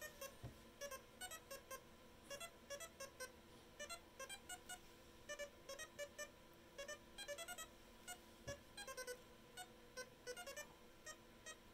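Synthesizer playing a quiet sequenced pattern of short beeping notes of varying pitch, about three or four a second, driven by a breadboard step sequencer.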